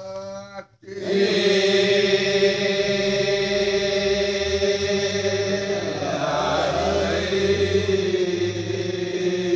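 Balinese genjek: a group of men singing together in sustained unison. The chorus enters about a second in, after a single voice's wavering phrase breaks off, and a low pulsing vocal part joins about four seconds in.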